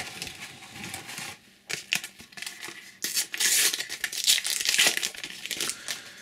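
A Panini sticker packet being torn open, its wrapper crinkling, loudest and densest in the second half. Before that, light rustling and clicks from stickers and packets being handled.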